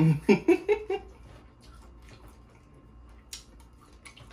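A man's short vocal burst of about five quick pulses in the first second, made with food in his mouth, followed by faint chewing and wet mouth clicks as he eats lobster tail.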